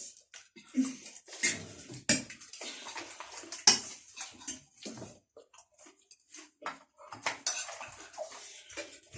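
Spoons clinking and scraping against dishes as people eat chatpate quickly, in short irregular strokes, the loudest about three and a half seconds in.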